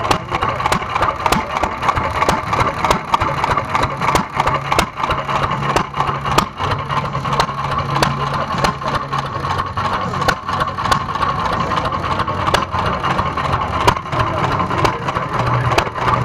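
Antique single-cylinder stationary engine with big flywheels running, its exhaust giving sharp bangs about two to three a second at uneven spacing over a steady low hum.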